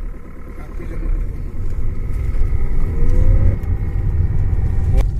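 Maruti Suzuki S-Cross engine heard from inside the cabin as the car pulls away and picks up speed. A low rumble grows louder over the first few seconds, with a faint rising whine about two to three seconds in. A sharp click comes near the end.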